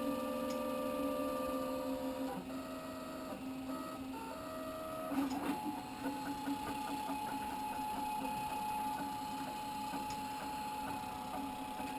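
Homemade 3D printer running, its stepper motors whining as the axes move. The steady pitch jumps to a new note every second or two, then holds one higher tone from about five and a half seconds in, with faint regular ticks.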